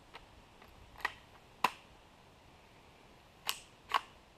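Four rifle shots from a .223/5.56 AR-style rifle fitted with a Troy Medieval muzzle brake: two about half a second apart about a second in, then two more about half a second apart past the three-second mark. Each is a sharp crack that dies away quickly.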